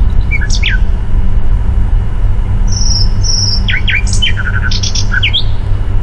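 Birdsong: short runs of quick, high chirps and whistled notes, a couple about half a second in and a busier run in the middle, over a steady low hum.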